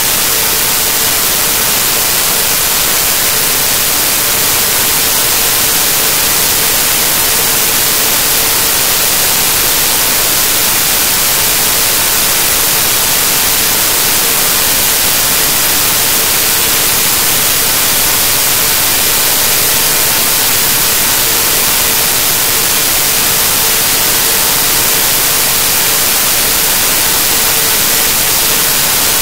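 Loud, steady static hiss filling the whole sound track, with a faint steady tone underneath; the recording is corrupted and no other sound comes through.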